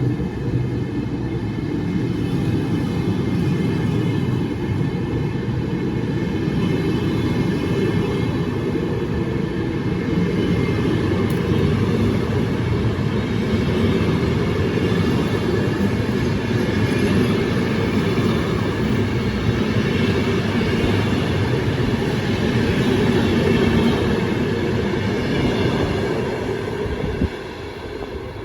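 Train running along the track: a loud, steady rumble of wheels on rail with a high whine over it, dropping off sharply about a second before the end.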